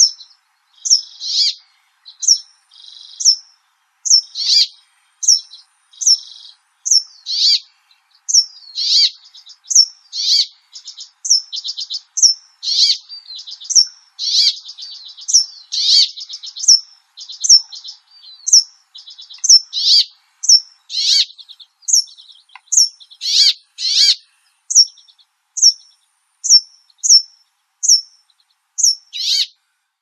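Brambling song: short, high, sharply falling chirps repeated about one and a half times a second, mixed with buzzy, rattling notes.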